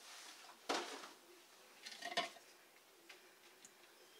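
Wooden spoon knocking against a stainless steel saucepan of thin sauce while stirring: two faint knocks, about a second and a half apart.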